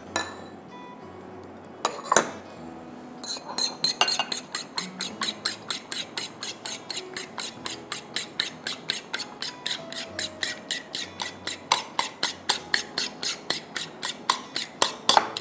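A fork beating an egg into milk in a ceramic bowl: quick, evenly spaced clinks of the fork against the bowl, about four a second, starting a few seconds in after a couple of single knocks.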